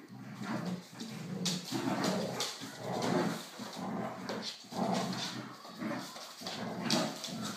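Golden retriever puppy and black Labrador retriever playing tug-of-war over a cloth toy, with dog vocalising that keeps going and a few sharp clicks or yips.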